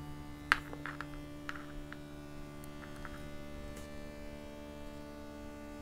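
A steady low hum, with a few small sharp clicks in the first four seconds, the loudest about half a second in: hard plastic accessories being pushed into a vinyl action figure's hands.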